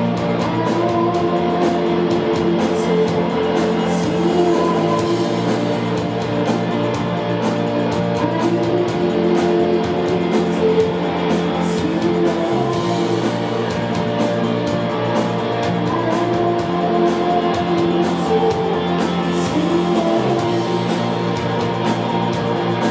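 Live rock band playing with electric guitars, a steady bass line and a woman singing, loud and even throughout.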